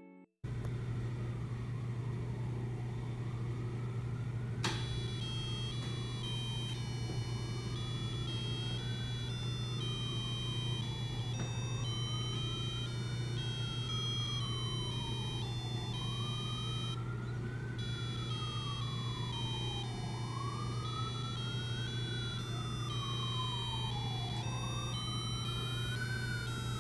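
Electronic tones from a BBC Micro:bit birthday-cake gadget: a stepped beeping tune of high notes changing about twice a second, over a siren-like tone that rises quickly and falls slowly, about every four seconds. A steady low hum runs underneath, and there is a single click about five seconds in.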